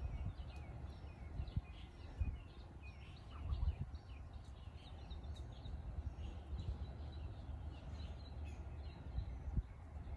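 Small birds chirping in many short, quick notes, over a steady low rumble with occasional soft thumps.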